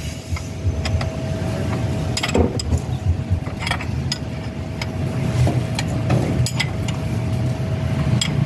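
Wrench clicking against a power steering hose fitting as the hose is tightened on: about eight sharp metal clicks spread out, over a steady low rumble.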